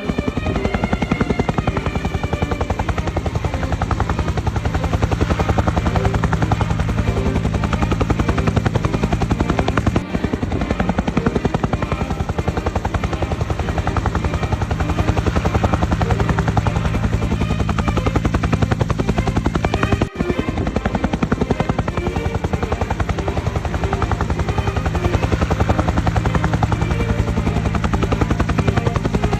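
Helicopter rotor blades beating in a fast, steady rhythm over a constant engine hum, with two brief dropouts about ten and twenty seconds in.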